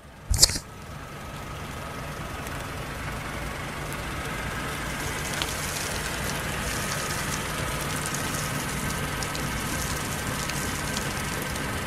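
A sharp click, then a car engine that grows louder over a few seconds as the car drives up and stops, settling into a steady low hum.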